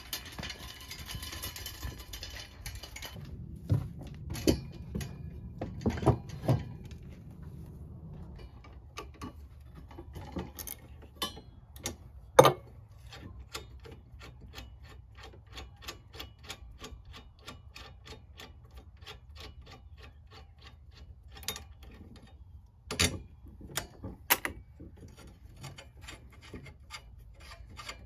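Ratchet wrench clicking in a steady run, about two to three clicks a second, while bolts on a steel wheel hoe's frame are loosened, with a few sharper metal knocks. Near the start, crunching on gravel and a few dull thumps as the hoe is wheeled over and set down.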